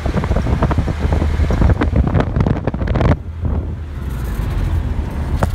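A car driving along a road: steady engine and road rumble with wind buffeting the microphone, the gusty wind noise dropping away about three seconds in.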